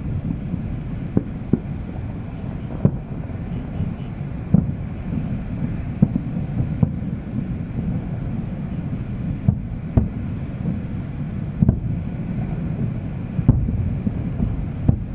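Distant fireworks bursting: short dull bangs about every one to two seconds over a steady low rumble.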